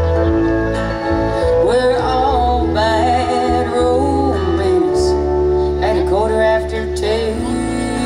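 Live country band playing an instrumental break: strummed acoustic guitar, electric bass and drums, with a lead line of bending, gliding notes over them.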